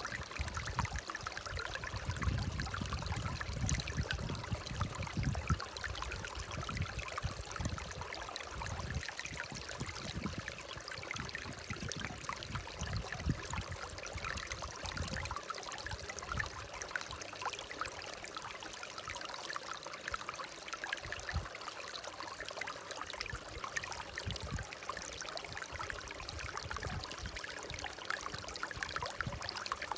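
Water running and trickling steadily, with irregular low rumbles through about the first half.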